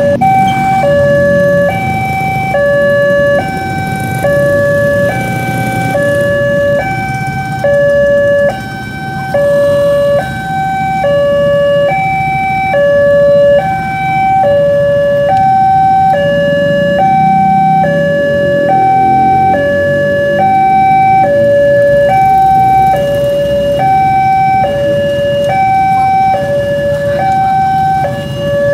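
Indonesian railway level-crossing warning signal sounding while the barriers are down: an electronic two-tone alarm alternating steadily between a high and a low tone, each held for under a second. Road traffic runs underneath it.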